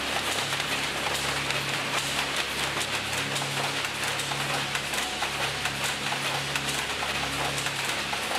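Picanol weaving looms running in a mill: a dense, rapid mechanical clatter, steady throughout, over a low hum.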